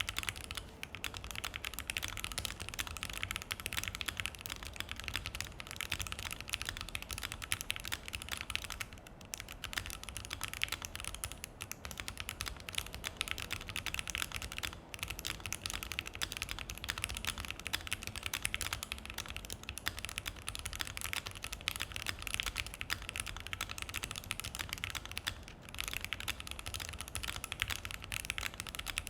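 Steady, fast typing on a Keychron Q1 mechanical keyboard with Banana Split linear switches in an FR4 plate and PBT keycaps: a continuous run of key clacks with a few brief pauses.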